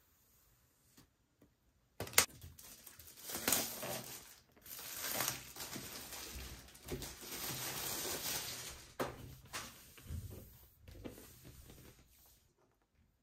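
Clear plastic shrink-wrap being torn and pulled off a laptop box, with a sharp snap about two seconds in followed by several seconds of crinkling and rustling. It ends with light knocks as the cardboard box is handled.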